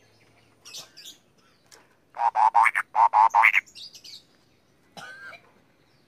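A caged cucak kopi singing: two loud phrases of fast repeated notes in the middle, with softer, higher chirps before and after.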